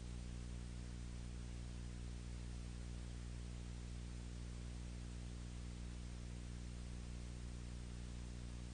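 Steady low electrical hum with its overtones under an even hiss, unchanging throughout: the background noise of a silent film's soundless track.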